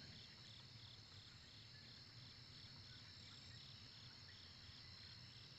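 Near silence except for faint crickets chirping steadily in an evening chorus, a high trill with an even pulse.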